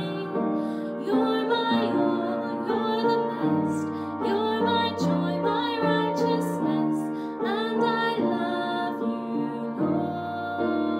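A woman singing a slow worship song solo, accompanied by a Yamaha upright piano.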